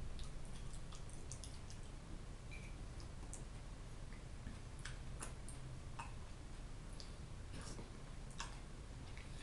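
A person eating lightly salted herring and fried potatoes with a fork: scattered short, sharp clicks and wet smacks of chewing and cutlery, over a steady low hum.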